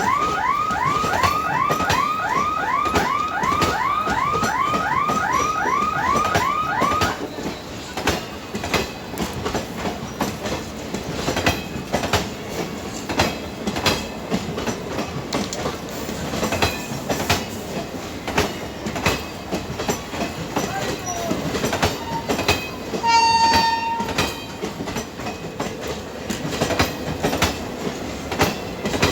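A warbling electronic siren, about three rising-and-falling wails a second, stops about seven seconds in. After that a passing train rolls with wheels clicking steadily over the rail joints. A short train horn blast sounds about two-thirds of the way through.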